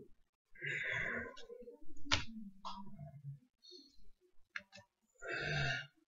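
Wordless vocal sounds from a man, with a sharp click about two seconds in as a ceramic figurine is set down.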